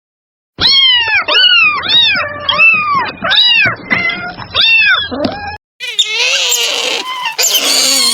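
A domestic cat meowing repeatedly: about eight loud meows in quick succession, each rising then falling in pitch. About six seconds in, they give way to a different, harsher sound.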